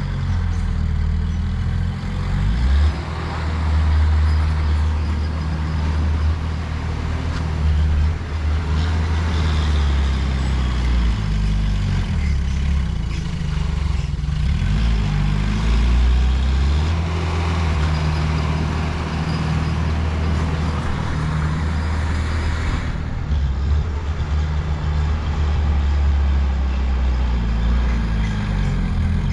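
Heavy diesel engines of earthmoving machinery running, the engine note rising and falling under load.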